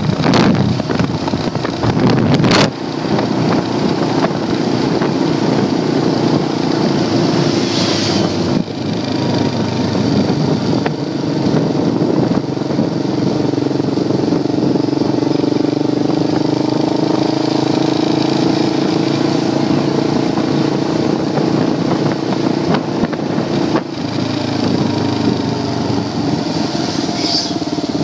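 Engine of a moving vehicle running steadily, mixed with wind and road noise as it rides along. There is a sharp knock about two and a half seconds in.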